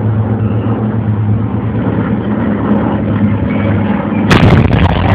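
A bomber's engines drone steadily overhead, then about four seconds in a sudden loud pyrotechnic blast goes off, simulating the bomb strike, and crackles on afterwards.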